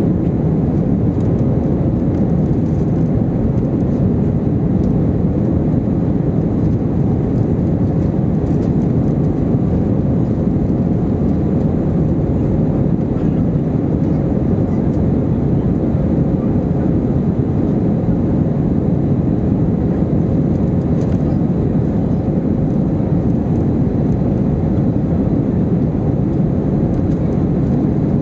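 Steady cabin noise inside an Airbus A321-231 in flight: the IAE V2500 turbofans and the airflow over the fuselage make an even, low rumble with a faint steady hum, unchanging throughout.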